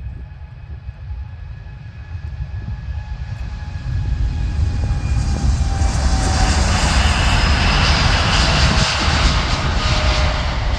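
Air Europa Boeing 787's jet engines at takeoff thrust through the takeoff roll and liftoff. A low rumble grows much louder about four seconds in as the aircraft comes abreast, with faint whining tones that drop slightly in pitch as it passes.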